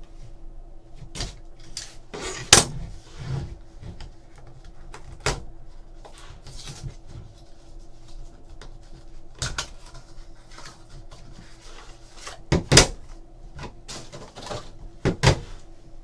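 A cardboard trading-card box being opened and hard plastic card holders handled on a table: light rustling broken by several sharp clicks and knocks, the loudest about two and a half seconds in and again near the end.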